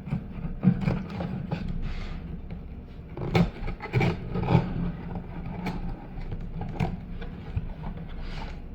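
Cardboard box being opened and its contents handled by hand: irregular scrapes, rustles and knocks, over a steady low hum.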